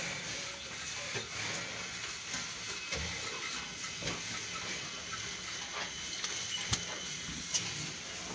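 Cow being milked by hand, thin jets of milk hissing steadily into a bucket, with a few small knocks.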